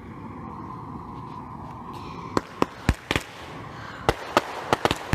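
Consumer fireworks going off: a steady hiss, then sharp bangs starting about halfway through. A few come spaced apart at first, then a quicker cluster near the end.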